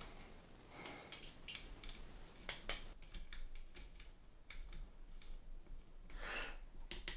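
Light, scattered clicks and taps of a canted red dot sight mount being seated and adjusted on a paintball marker's Picatinny rail.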